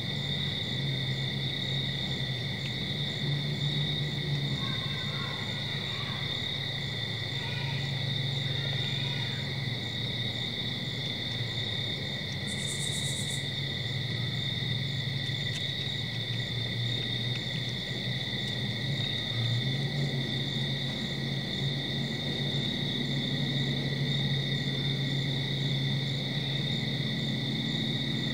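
Night chorus of crickets and other insects, a steady trill at two pitches, over a low hum. About twelve and a half seconds in, a brief high hiss of under a second cuts through.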